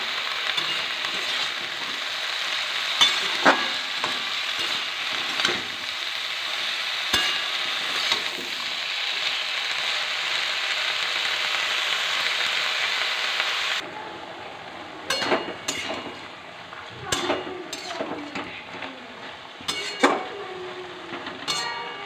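Freshly added chopped bottle-gourd stems and leaves sizzling steadily in hot mustard oil in a steel wok, with a few knocks of a spatula stirring them. About fourteen seconds in the sizzle drops away suddenly, leaving a quieter hiss with spatula clicks and scrapes against the wok.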